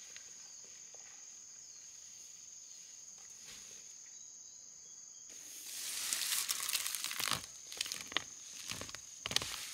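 Insects chirring in a steady high tone; about five seconds in, loud irregular rustling and crackling starts and covers it.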